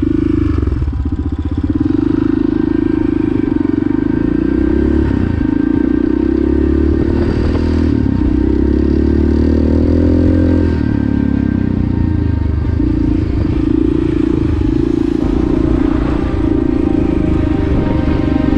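Yamaha TT600's single-cylinder four-stroke engine running while the dirt bike is ridden, heard from on the bike. Its note rises and falls with the throttle.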